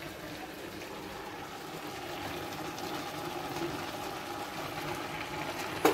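A steady mechanical hum with a hiss, slowly growing a little louder, and one sharp click near the end.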